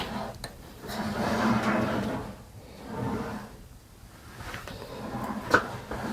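Stored furniture and objects being shifted by hand, with scraping and rubbing stretches, a knock at the start and a sharper knock about five and a half seconds in.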